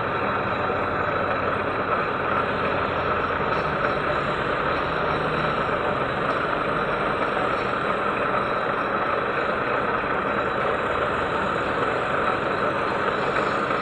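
Lathe running with a tool grinding against the workpiece: a steady, even grinding noise that does not change.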